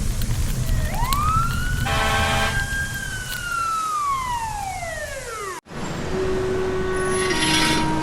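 A siren winding up quickly, holding its pitch, then winding slowly down over a low steady rumble. It cuts off abruptly about five and a half seconds in, and steady held tones follow.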